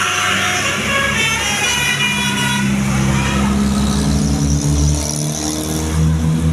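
Tour bus 'telolet basuri' musical horn sounding a run of stepped tones over the first few seconds. A low engine-like hum runs underneath and grows stronger in the second half.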